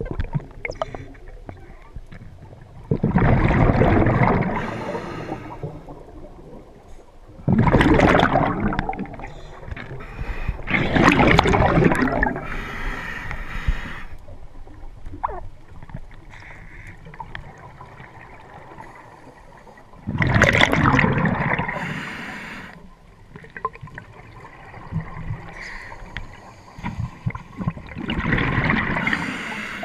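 Scuba regulator exhalations underwater: a loud rush of bubbles five times, a few seconds apart, with quieter breathing through the regulator between them.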